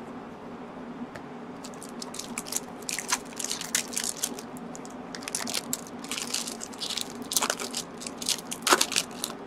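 Foil wrapper of a Magic: The Gathering Alliances booster pack crinkling as it is pinched and torn open by hand: a rapid, irregular run of crisp crackles starting a second or two in.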